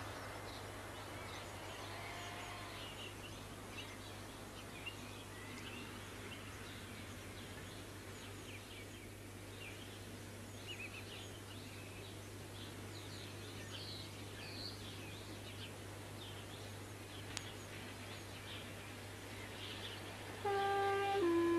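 Outdoor ambience: scattered short bird chirps over faint background noise and a steady low hum. About twenty seconds in, music begins with a couple of held notes, louder than the rest.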